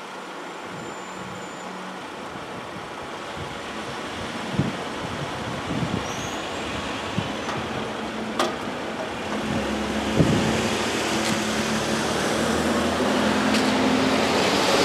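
Road traffic: cars and a pickup truck driving off and over the crossing, the noise building toward the end, with a few short thumps along the way.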